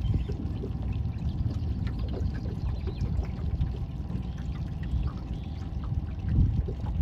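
Water sloshing and trickling in small irregular splashes over a steady low wash, swelling briefly near the end.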